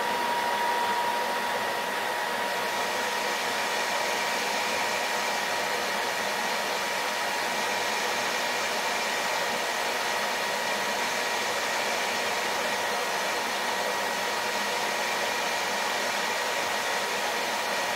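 Metal lathe running at a steady speed, turning a workpiece against a carbide-insert turning tool: an even whir with a steady high whine on top.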